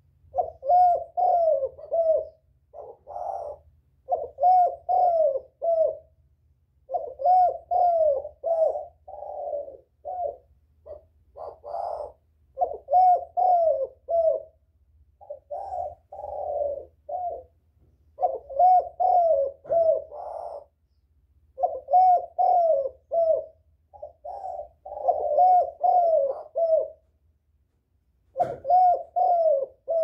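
Spotted dove cooing over and over, each phrase a run of several quick coos, with short pauses between phrases.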